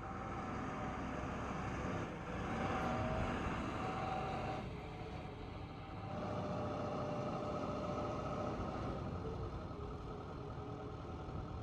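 Hangcha CPCD70 7-tonne diesel forklift running, with a steady whine over the engine that shifts in pitch a few times.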